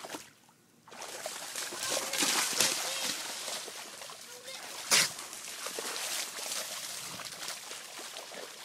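A dog running and bounding through shallow standing water, its paws slapping and sloshing in an uneven run of splashes, with one loud sharp splash about five seconds in.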